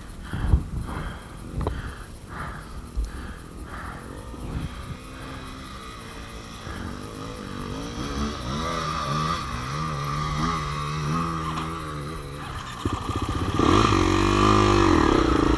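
Motorcycle engine revving unevenly at low speed, its pitch rising and falling, getting louder about two seconds before the end.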